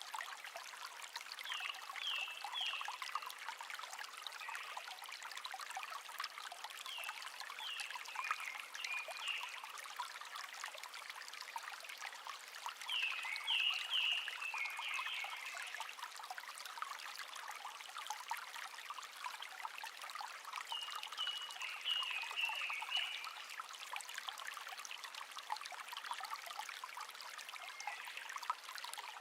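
A small stream trickling and babbling steadily, while a songbird sings four short phrases of quick, falling notes, spaced several seconds apart.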